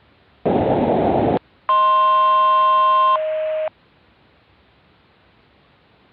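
A short burst of static, under a second long, then a steady electronic alert tone of several pitches held for about a second and a half. Its lower pitch carries on alone for a moment before it cuts off. Faint hiss otherwise.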